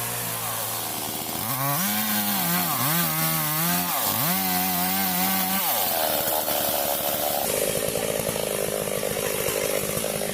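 Stihl MS 382 two-stroke chainsaw revving in three throttle bursts, then cutting into wood from about six seconds in, its engine note turning rough under load.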